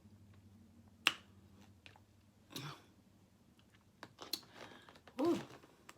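Close-up eating sounds: a sharp mouth click or lip smack about a second in, then fainter chewing and smacking, and a short hummed vocal sound near the end.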